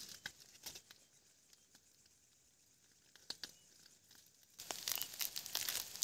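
A plastic Maggi instant-noodle wrapper being crinkled and torn open. A few light crackles come in the first second, then it goes nearly quiet. About a second and a half before the end, a dense crinkling and tearing starts and carries on.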